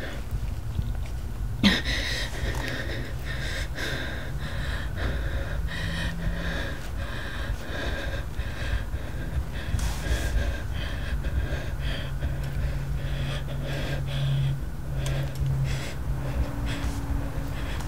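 A frightened woman breathing hard and gasping, over a low steady rumble. A single sharp click comes about two seconds in.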